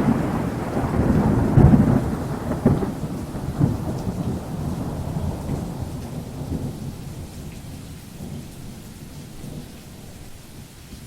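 Rolling thunder rumbling over steady rain, swelling several times in the first few seconds and then slowly dying away.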